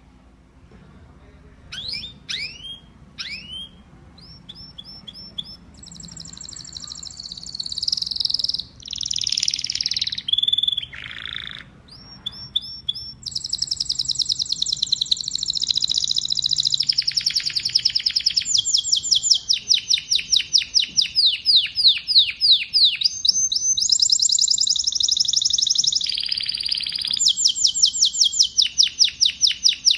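Domestic canary singing: after a short quiet start, a few quick downward-sweeping notes, then a long song of rapid high-pitched trills and rolls that runs on without a break through the second half.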